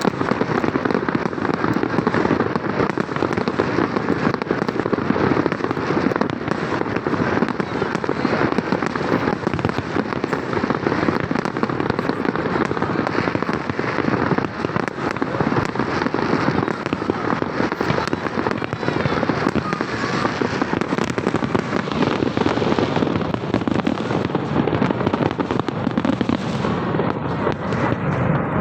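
Fireworks going off without a break: a dense, continuous run of overlapping bangs and crackles.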